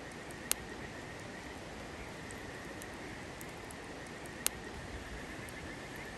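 Steady outdoor ambience: an even rushing hiss with a faint high steady tone, broken twice by a sharp click, once about half a second in and once about four and a half seconds in.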